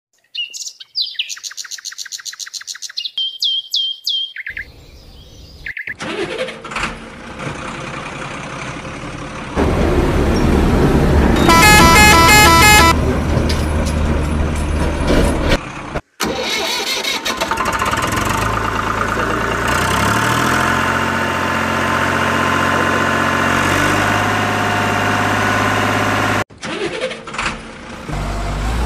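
Truck engine sound effects laid over the toy play: an engine starting and running with a deep steady hum, a horn honking in a quick series about twelve seconds in, then the engine revving up in steps through the gears. A string of short high falling tones opens the first few seconds.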